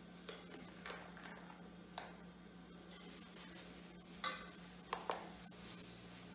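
A metal spoon scraping and clinking against a stainless steel pot and a plastic container as cooked food is spooned out, with scattered light clicks and one sharper knock about four seconds in. A steady low hum runs underneath.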